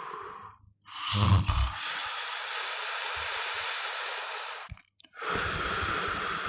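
A person snoring. The breath trails off at the start. About a second in comes a short, low rattling snore, followed by a long breathy hiss of air. After a brief pause, the next rattling snore begins near the end.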